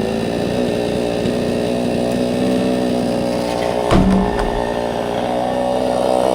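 Two-stroke chainsaw engine running at a steady speed, with a single heavy thump about four seconds in.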